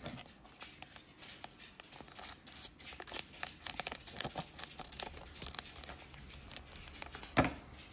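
Foil trading-card booster pack wrapper crinkling and crackling as it is handled and cut open with scissors, with a sharp crackle near the end.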